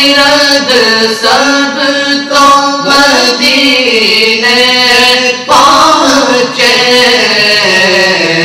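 A group of young men singing an Urdu na'at together, unaccompanied, in long held notes with wavering melodic turns.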